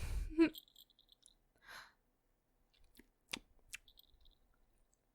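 A woman's mouth sounds close to the microphone: a short voiced hum at the start, a soft breath, then a few sharp clicks a little past the middle.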